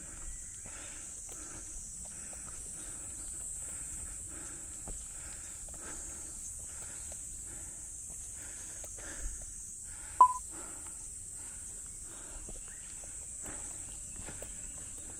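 Footsteps on a dirt forest trail, about two steps a second, under a steady high-pitched insect drone. About ten seconds in there is one sharp click, the loudest sound.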